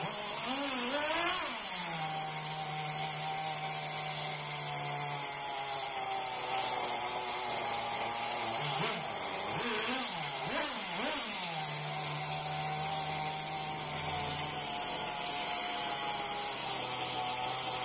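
Kyosho nitro truggy's small glow-fuel engine idling, blipped up in a few quick rising and falling revs about a second in and again around the middle, settling back to a steady idle between, while its carburettor is being tuned.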